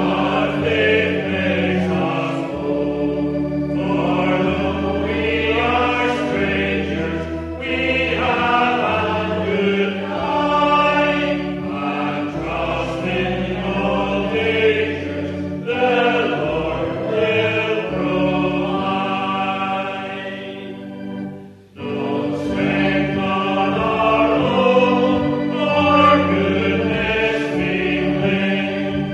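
Congregation singing a hymn together over steady low held notes of accompaniment, with a short break about three-quarters of the way through before the singing resumes.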